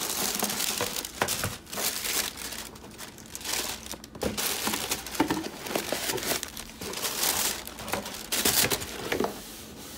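Tissue paper crinkling and rustling in a cardboard shoebox as a sneaker is pulled out of its wrapping, in irregular bursts with a few light knocks against the box.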